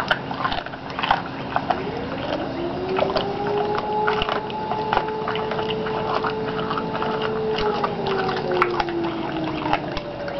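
American Pit Bull Terrier gnawing and tearing a raw chicken quarter held in a hand, shearing it with his carnassial teeth: wet chewing, crunching and clicking throughout. Behind it, a steady mechanical hum rises in pitch about two seconds in and falls away near the end.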